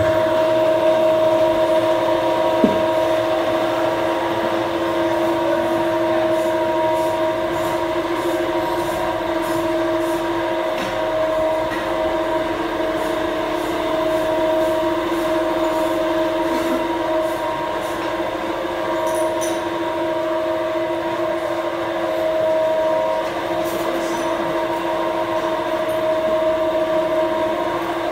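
A steady mechanical hum held at one unchanging pitch with strong overtones, from machinery running in the workshop, with a few faint light clicks over it.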